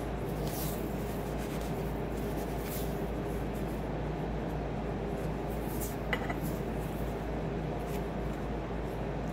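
Light kitchen handling sounds over a steady low hum: a flat metal spatula and gloved hands working dough on a counter, with faint scrapes and one small metallic clink about six seconds in.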